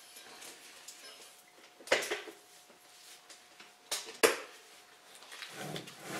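A heavy rock being pulled by a strap across a concrete floor: a few sharp knocks about two seconds in and twice around four seconds, then a rough grinding scrape as the rock slides near the end.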